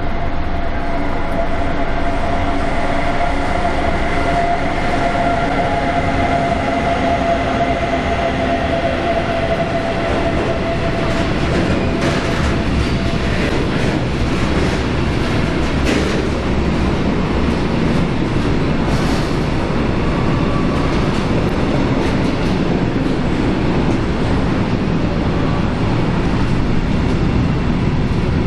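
A train moving through a station at close range, with a steady rumble. A whine slowly drops in pitch and dies away about halfway through, and the wheels click over rail joints around the middle.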